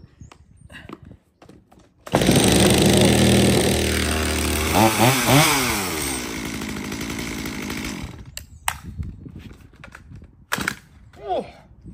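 Stihl MS250 two-stroke chainsaw pull-started: it catches suddenly about two seconds in, is revved up and down twice, then runs steadier. Near the end it drops much quieter with a few clicks and a short rise in pitch before running loud again. This is a saw that is hard to start and kicks back on the starter rope, pulling it out of the hand.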